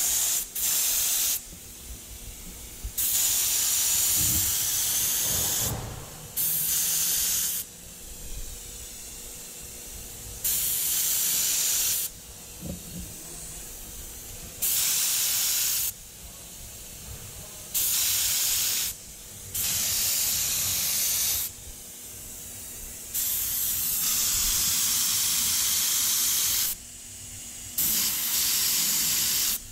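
Red high-temperature caliper paint spraying from an aerosol can in about nine hissing bursts, each one to three seconds long and cut off sharply.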